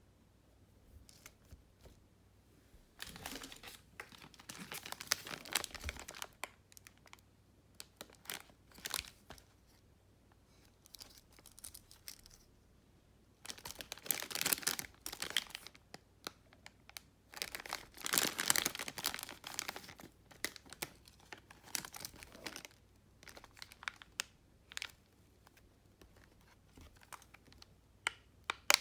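Plastic packaging crinkling as it is handled, in several bursts of a few seconds each, with scattered small clicks in between.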